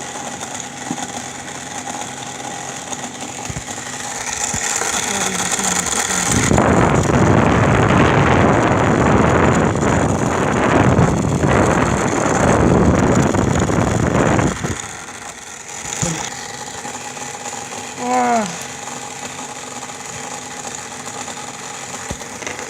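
Repaired air conditioner running with a steady mechanical hum; about six seconds in a loud rushing noise builds and runs for about eight seconds, then cuts off abruptly, leaving the hum.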